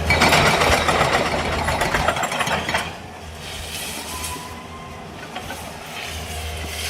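A heavy demolition machine's diesel engine running, with a loud burst of crashing and rattling, like breaking concrete and debris, for the first three seconds before it falls away.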